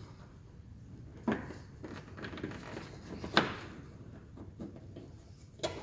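A few light clicks and taps of a licence plate holder and its screws being handled against a car's front bumper as the screws are started by hand, the sharpest click about three and a half seconds in.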